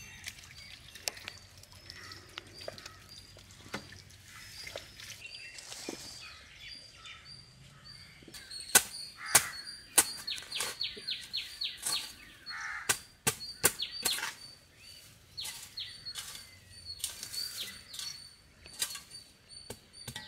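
Birds chirping steadily in the background. In the second half come a series of sharp knocks and snaps, some in quick runs of about half a dozen, and these are the loudest sounds.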